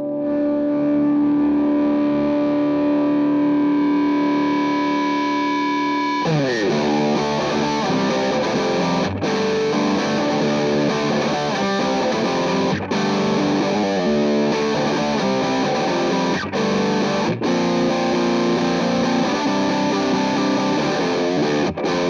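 Electric guitar played through a JHS Angry Charlie distortion pedal: a distorted chord held and ringing, then about six seconds in a fast riff of changing notes and chords, with a few brief stops.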